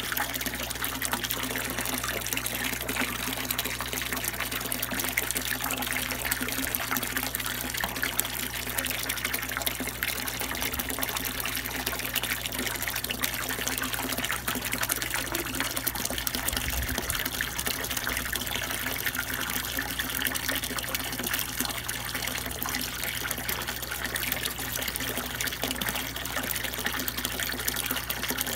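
A stream of water pouring steadily into a tank and splashing on the surface, with a low steady hum underneath.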